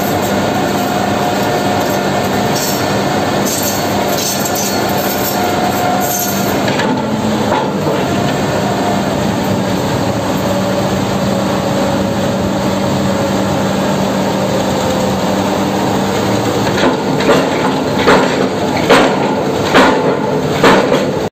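Sany SR 150C rotary drilling rig running: steady machinery noise with a constant hum. In the last few seconds a series of sharp knocks, about one a second, stand out above it.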